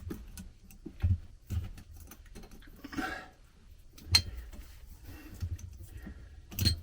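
Scattered small metallic clicks and rustling handling noise as the black wire is fastened under a terminal screw of a ceramic light receptacle, with three sharper clicks spread through.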